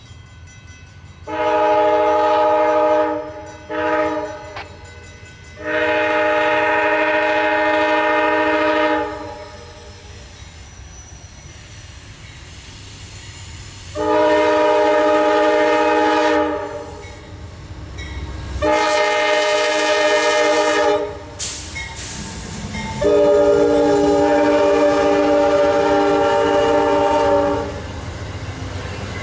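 An Amtrak Genesis passenger locomotive's Nathan K5LA five-chime air horn, played in six blasts: a long blast, a short one, then four long blasts of two to four seconds each, with gaps between them. The low rumble of the train runs beneath.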